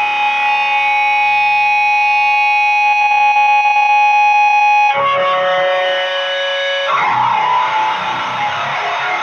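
Electric guitar tuned to B standard, played through a Boss HM-2 Heavy Metal pedal boosted by a Boss SD-1 into a Jet City JCA22H tube amp, giving the buzzy HM-2 "chainsaw" distortion. A chord rings for about five seconds, a new chord comes in near the middle, and faster picking follows.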